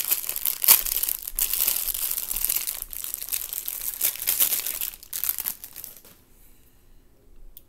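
Clear plastic packaging crinkling and crackling as it is handled and pulled open, stopping about six seconds in.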